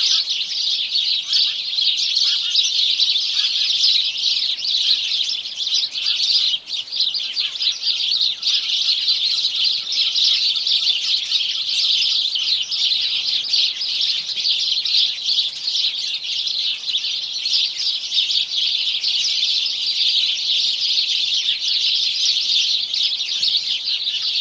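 Sparrows chirping, many calls overlapping into a dense, unbroken chatter.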